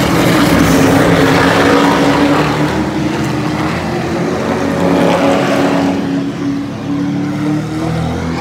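A pack of super trucks racing past at speed, their engines running hard, loudest as they go by, then easing off a little after about two and a half seconds as the pack moves away.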